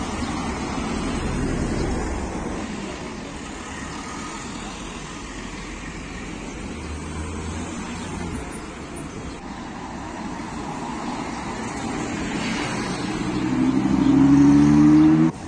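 Cars driving past on a city street, with steady traffic noise. Near the end a sports car's engine accelerates hard, its pitch rising, the loudest sound here, and cuts off suddenly.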